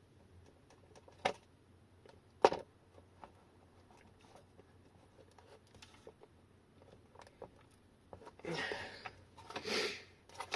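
Hands handling an opened e-bike battery pack and its plastic discharge connector: two sharp clicks in the first few seconds, a few faint ticks, then two short stretches of scraping and rustling near the end.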